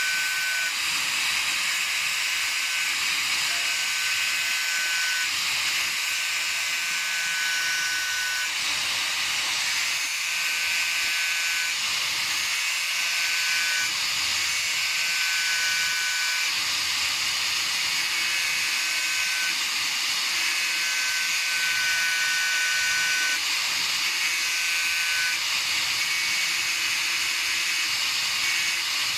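Steady high hiss from a running power tool working a drill bit, with a high whistling tone that comes and goes about every two seconds.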